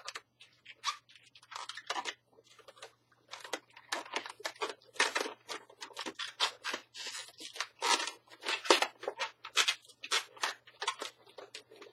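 Latex 160 modelling balloons squeaking and rubbing against each other as they are twisted and wrapped by hand: many short, irregular squeaks.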